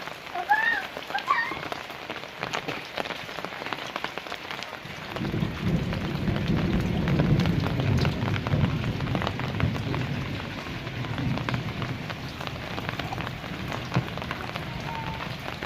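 Steady rain falling, with drops pattering and ticking on nearby surfaces. From about five seconds in, a deep low rumble swells under the rain for several seconds, then eases.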